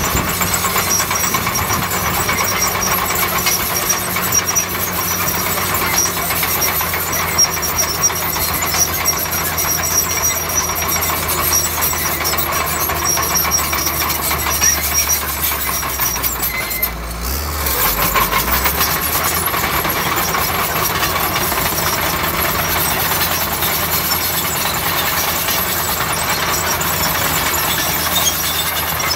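Bulldozer's diesel engine running steadily under work, with a dense mechanical rattle over it. The engine note dips briefly just past halfway, then picks up again.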